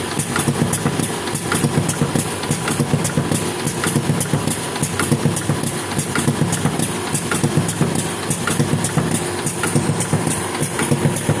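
The GOLDONE Speed 15 machine running steadily: a low hum with a thin high whine over it, and a regular clatter of about three to four clicks a second.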